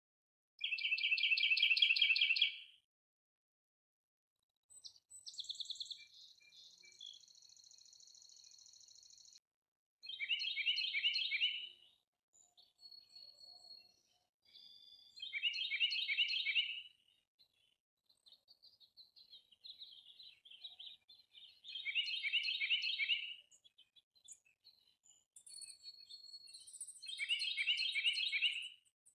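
Songbird singing the same phrase, a quick run of rapid notes about two seconds long, five times, roughly every five to six seconds. A thinner, higher, buzzy trill runs from about five to nine seconds in, with softer chirps between the songs.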